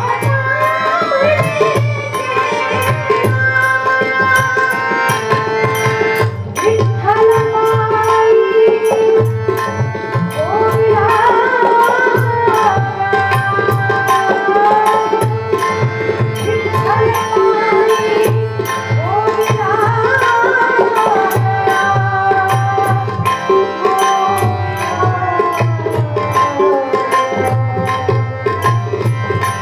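Marathi Varkari bhajan: a solo voice sings a slow, ornamented devotional melody over a steady held reed drone. A hand drum keeps a pulsing rhythm, and bright metallic ticks mark the beat.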